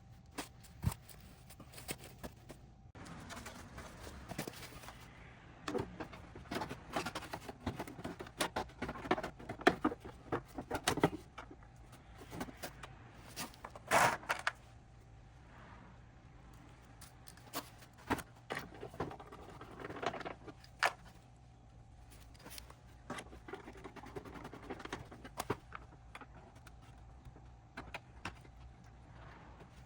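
Irregular clicks, taps and scrapes of small metal parts and tools being handled during motorcycle maintenance work, over a faint steady hum.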